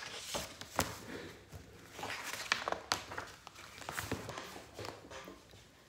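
Paper rustling and light taps as a picture book's pages and loose sheets are handled and turned, with short irregular clicks and soft rustles that fade out near the end.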